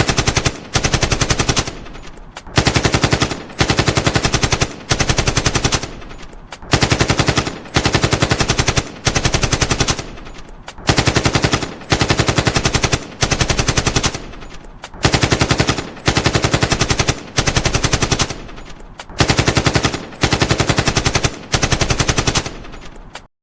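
AK-47 assault rifle firing on full automatic in a long series of short bursts, each under a second, with brief pauses between. The firing stops abruptly near the end.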